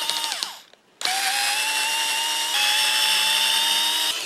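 Cordless electric screwdriver backing screws out of a plastic plug housing. A short run that winds down under a second in, then after a brief pause a steady motor whine of about three seconds, rising a little in pitch partway through and stopping near the end.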